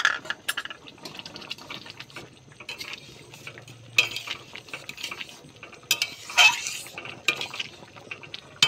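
A metal spoon stirring a thick chickpea curry in an aluminium kadai, scraping and clinking against the pan's side, with a few louder knocks.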